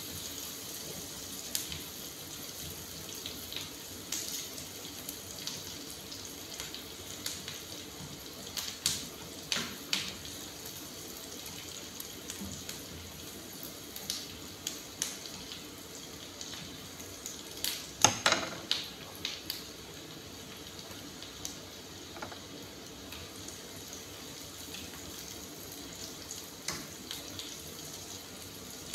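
Food sizzling in oil in a frying pan, with a wooden spatula scraping and knocking against the pan now and then. A cluster of louder scrapes and knocks comes about eighteen seconds in.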